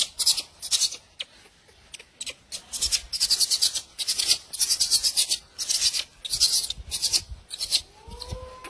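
A macaque's hands rubbing and picking at the gauze bandage wrapped on her baby's arm: an irregular run of short, scratchy rustles, two or three a second. A faint rising call comes in near the end.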